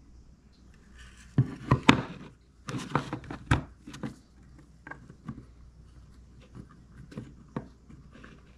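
Hard 3D-printed plastic parts, a canard and its box mount, clicking and knocking as they are handled on a countertop. There is a cluster of sharp knocks a second or two in, then fainter scattered clicks.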